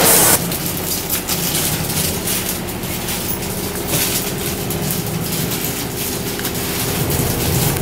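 A loud rush cuts off just after the start, giving way to the steady hum of a Taiwan Railways DR2700 diesel multiple unit's diesel engine heard from inside the car, with scattered clicks and knocks.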